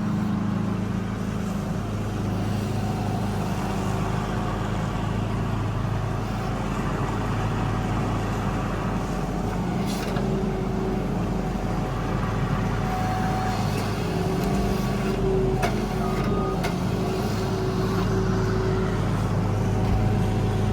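Truck engine running steadily at an even pitch, with a few faint clicks.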